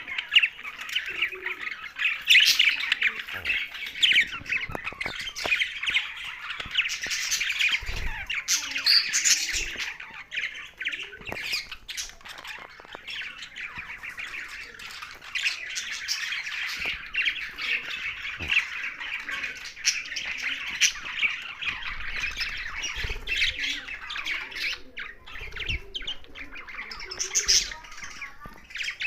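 A flock of pet budgerigars and parrots chattering continuously, many high calls overlapping without a pause, with a few soft knocks in between.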